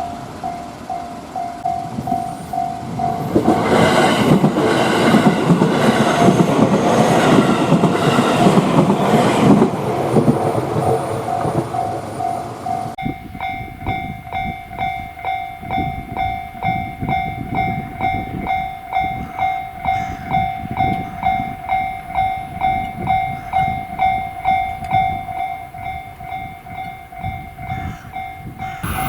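Japanese level-crossing alarm ringing its repeated 'kan-kan' bell at about two strokes a second, while an electric train runs past over the rails. About halfway through, the sound cuts abruptly to a crossing bell ringing on over much quieter train noise.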